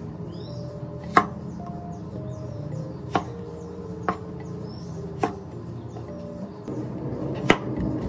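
Kitchen knife chopping through round green Thai eggplants onto a wooden cutting board: five sharp chops at uneven intervals, over soft background music.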